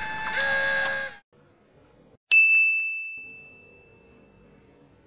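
A single bright ding: one sharp strike about two seconds in, ringing on one high tone and fading away over about two seconds. Before it, a pitched sound cuts off abruptly about a second in, leaving near silence.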